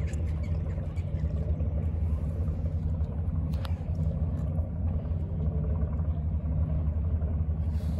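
An engine running steadily, a constant low rumble.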